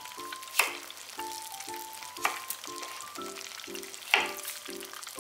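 Kitchen knife cutting through a cucumber onto a wooden cutting board: three sharp chops, a little under two seconds apart, over light background music with a steady beat.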